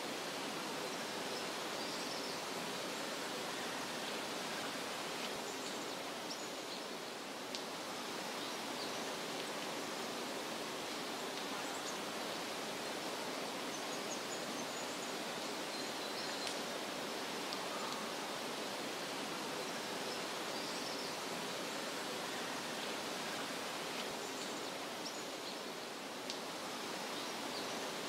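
Steady outdoor nature ambience: an even, unbroken rushing hiss with a few faint, short high chirps scattered through it.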